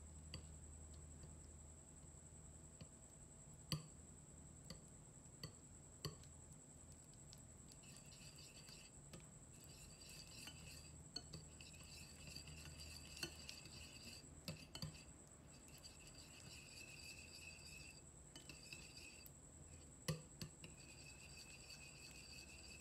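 Wire whisk stirring and scraping through softened butter in a glass bowl, quiet, with a few sharper clinks of the whisk against the glass.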